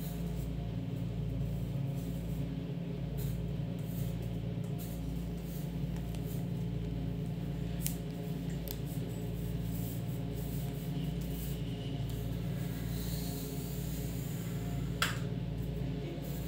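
Pencil scratching across paper in drawing strokes, over a steady low hum. A sharp click comes near the end.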